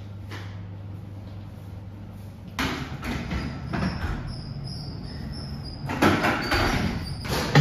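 A wooden folding table being moved and handled, rattling and rubbing with a thin squeak and several sharp knocks, starting about two and a half seconds in. Before that there is only a steady low room hum.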